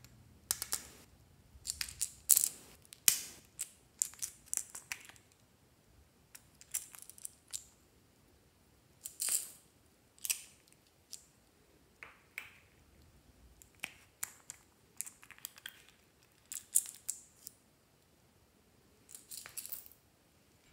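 Hard plastic cube-shaped slime containers being handled: irregular sharp clicks and taps, some in quick clusters, as a snap-on lid is pried open and the containers are knocked and set down.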